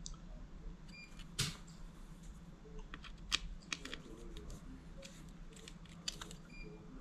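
Small plastic parts of a smoke alarm base and connector block being handled while screws are tightened: irregular light clicks and taps, with a few sharper clicks about a second and a half, three and a half and six seconds in.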